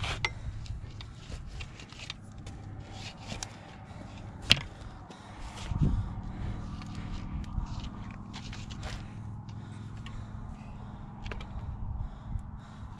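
Scattered clicks and scrapes over a low rumble, from a bicycle wheel clogged with mud being worked loose by hand. There is a sharp click about four and a half seconds in and a duller thump about six seconds in.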